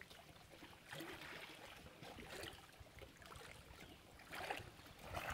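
Faint lapping of lake water against a stone embankment, a quiet, even wash of sound.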